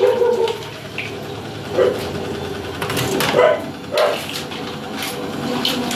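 A dog barking three times in short barks, about two, three and four seconds in, over a steady background hum.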